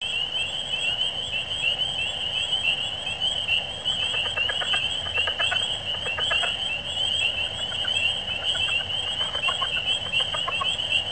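Chorus of calling frogs: a dense, high-pitched mass of rapid overlapping calls, with lower, irregular pulsed calls joining from about four seconds in.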